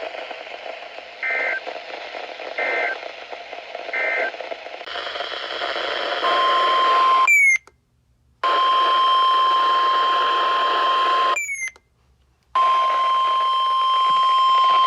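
Weather radio emergency alert over radio hiss: three short two-tone data bursts, the SAME header that opens an EAS message, then the steady single-pitch 1050 Hz NOAA Weather Radio warning alarm tone. The tone cuts out twice for about a second.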